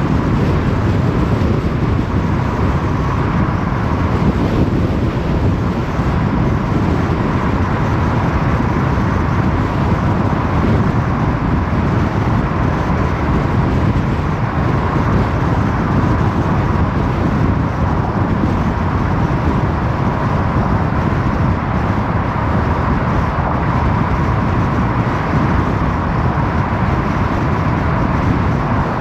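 A car driving steadily along a road: an even rush of tyre, wind and engine noise with no change in speed.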